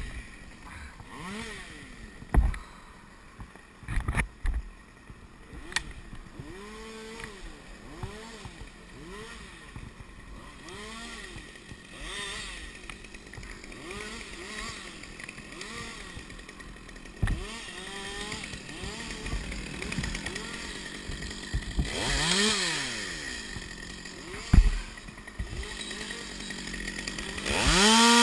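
Top-handle two-stroke chainsaw running, its engine speed rising and falling about once a second. It is revved up loudly near the end as it goes into a cut. A few sharp knocks sound in between.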